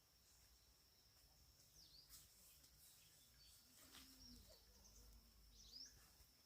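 Near silence: faint outdoor ambience with a steady high, thin tone and a few faint bird chirps, one about two seconds in and one near the end.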